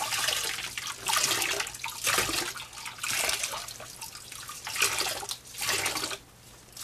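Soapy water squeezed out of a soaked cloth doll body, pouring and splashing into a plastic tub of water in repeated bursts about a second apart as the body is wrung, dying away about six seconds in.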